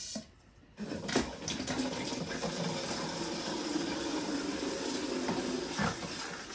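Water gushing steadily from the cistern's flexi supply hose into a bucket, starting about a second in. The supply line is being purged to flush out solder flux and debris so it cannot block the fill valve's small inlet.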